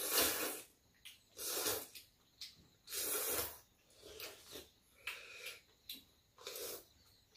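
Several loud slurps of noodles being sucked up from a bowl of soup, in short hissing bursts about one to two seconds apart; the first is the loudest.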